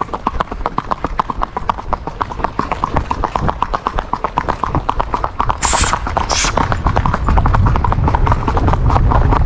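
A horse's hooves on an asphalt road, a rapid and even clip-clop heard from the saddle. Two short hisses come a little past halfway, and a low rumble grows over the last couple of seconds.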